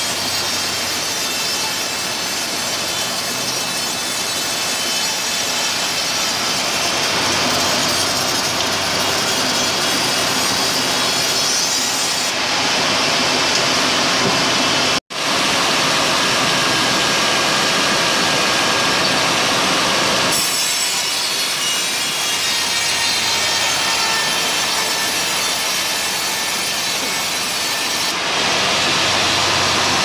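Large sawmill band saw cutting lengthwise through a teak log on a moving carriage: a steady, loud sawing noise of blade through wood. It breaks off for an instant about halfway through, and its hiss shifts a few times.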